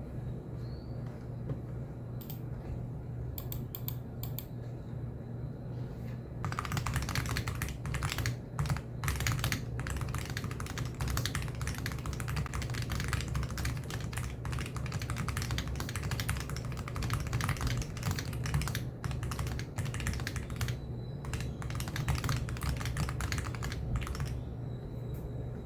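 Nuphy Air75 HE low-profile Hall-effect keyboard being typed on: a few scattered key presses at first, then fast continuous typing from about six seconds in, thinning out near the end. A steady low hum runs underneath.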